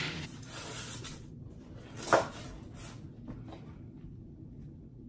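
Quiet handling of cardboard packaging, with one sharp knock about two seconds in and a few faint ticks after it.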